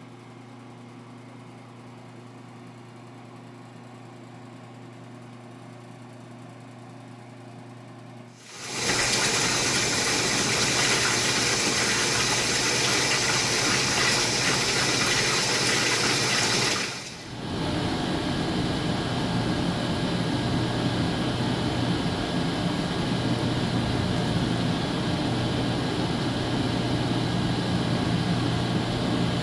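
Jacuzzi tub: a steady low motor hum, then about eight seconds in water starts gushing loudly into the tub. After a brief dip a little past halfway, the water keeps rushing with a deeper sound and the motor hum underneath.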